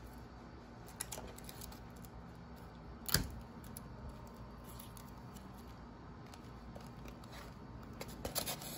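Quiet handling of a paper craft and sticky tape on a desk: a few soft taps and rustles, a sharper tap about three seconds in and a short cluster of taps near the end.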